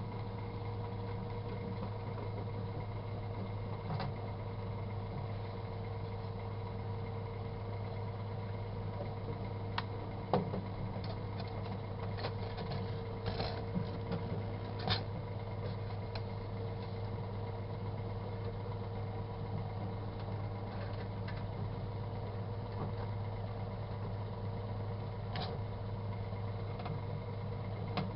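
Microwave oven running with a steady hum. A cluster of sharp pops and crackles about ten to fifteen seconds in, and one more near the end, as a sealed container of yogurt heats and spatters.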